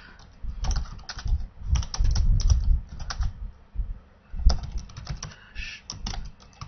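Typing on a computer keyboard: a run of unevenly spaced keystrokes as a command is entered at a Linux prompt, with one sharper keystroke about four and a half seconds in.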